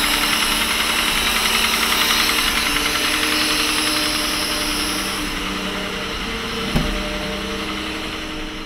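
Mercedes W126 engine idling with a steady, rapid knock that remains after the valve clearances were adjusted. The owner suspects a piston or connecting rod, and later traces it to the camshaft rattling in worn camshaft bushings, the front bushing above all. A single short click about seven seconds in.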